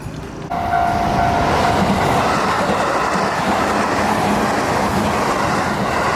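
Electric train running along the track, its wheels clattering on the rails; the sound comes in suddenly about half a second in and stays loud and steady. A short steady tone sounds over it for about a second at the start.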